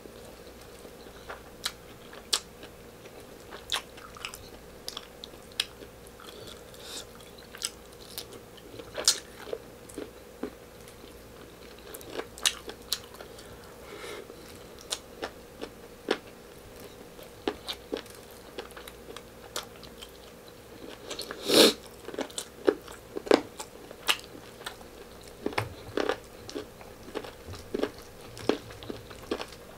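Close-up mouth sounds of a man chewing a hand-eaten mouthful of meat stew and rice, with frequent short wet clicks and smacks. The loudest comes about two-thirds of the way through, over a faint steady hum.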